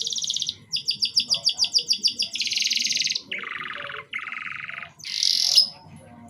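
Domestic canary singing a run of trilled song phrases. A fast high roll is followed by a string of separate repeated notes, about six a second. Then comes another rapid roll, two lower-pitched rolls, and near the end a short, loudest phrase.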